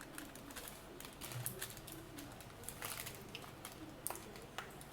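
Scattered light taps and clicks of cookie dough being flattened and handled on a work surface, several small knocks a second.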